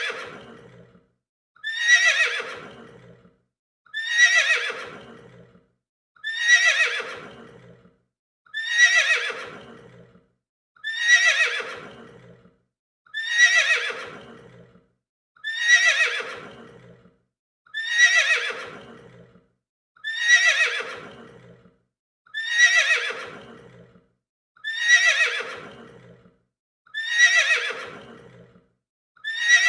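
A horse whinnying, the same recorded whinny looped again and again, about one call every two seconds. Each call starts high and falls in pitch, tailing off over about a second, with a short silence before the next.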